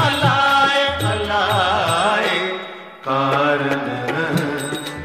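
Indian devotional song: a singing voice with a wavering, gliding melody over hand-drum beats. The music thins out briefly about three seconds in, then comes back with steadier held tones and drum strokes.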